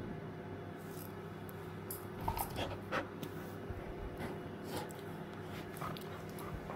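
A dog chewing and mouthing a toy, making scattered small clicks and rustles over a steady low hum.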